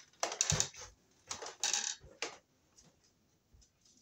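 Handling noise from a pair of wire strippers and stiff electrical cable wires: a handful of short clicks and rustles in the first two seconds or so.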